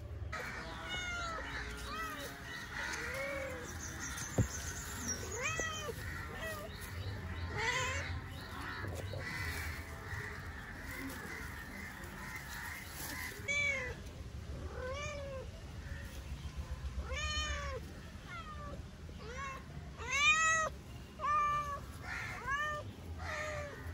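Kittens meowing repeatedly: many short, rising-then-falling mews at a few different pitches, which come more often and more loudly in the second half.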